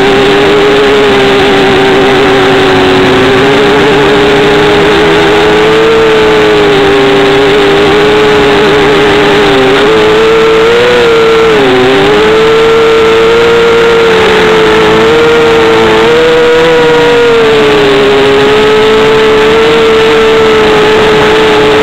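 Brushless motors and propellers of a 250-size FPV racing quadcopter, heard from its onboard camera: a loud, steady whine over a rushing noise, its pitch wavering with the throttle and dipping sharply twice about ten to twelve seconds in.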